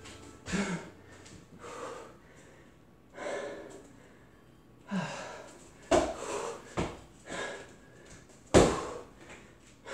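A man breathing hard while throwing punches and kicks, with short forceful exhalations, about eight of them, the loudest near the end.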